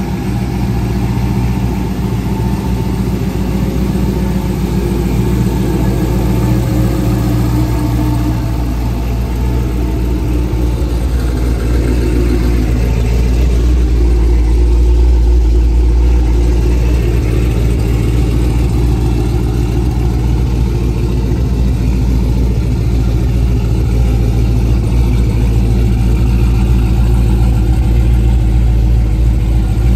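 1969 Chevrolet Impala's twin-turbo engine idling steadily with a low, even rumble, growing slightly louder partway through.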